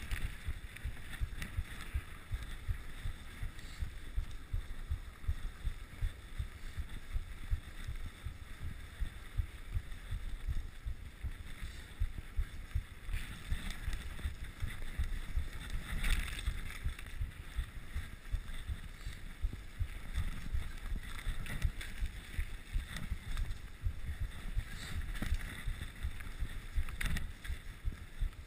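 Mountain bike rolling fast over a snowy, bumpy trail: a constant low rumble of wind on the microphone and riding vibration, with the tyres on snow and occasional sharper knocks and rattles from the bike over bumps.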